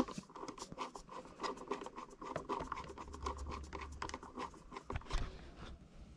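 Small precision screwdriver turning tiny screws into the plastic chassis of an Axial SCX24 1/24-scale crawler: a faint, irregular run of small clicks and scratches from the bit and the screw, with a brief low hum in the middle.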